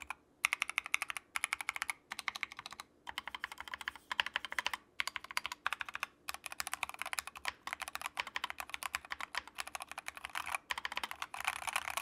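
Typing on a compact mechanical keyboard with Akko Jelly Pink linear switches, PBT ASA-profile keycaps and foam dampening between the PCB and plate: quick runs of keystrokes broken by short pauses, with no stabilizer rattle.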